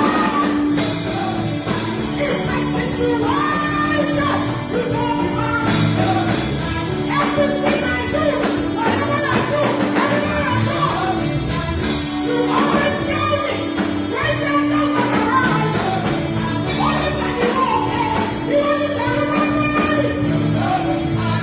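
Worship music in a church: voices singing a gospel song over a band, with a steady held low note under the melody.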